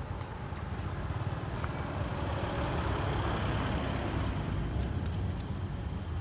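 A motor vehicle running close by: a low rumble underneath, with its wider engine and road noise swelling to a peak about halfway through and easing off, as a vehicle passing does.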